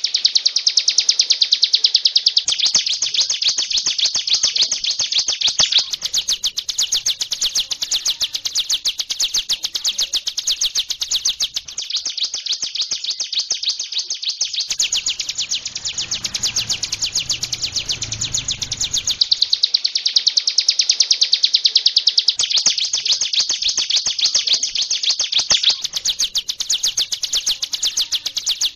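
Hill prinia (prenjak gunung) singing hard: a long, unbroken run of rapid high chipping notes, many a second, changing phrase every few seconds.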